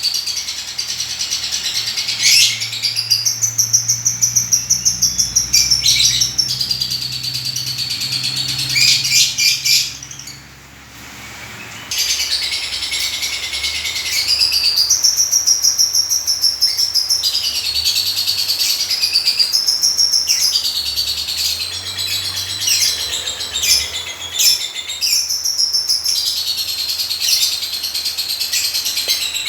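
Lovebird chirping and chattering almost without pause in high, rapid strings of calls, broken once by a short silence about a third of the way in.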